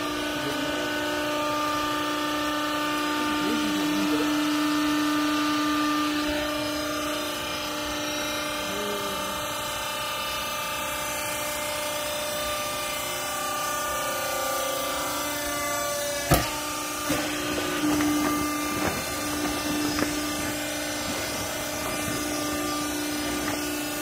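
Vertical hydraulic baler's electric motor and hydraulic pump running with a steady hum while the press plate compresses old clothes. There is one sharp knock about sixteen seconds in, followed by a few lighter knocks.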